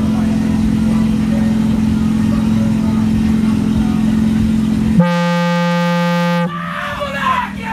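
A car-audio competition speaker wall playing a loud, steady low droning tone at full power for about five seconds. It switches to a clean, horn-like tone held for about a second and a half, which cuts off suddenly and gives way to voices.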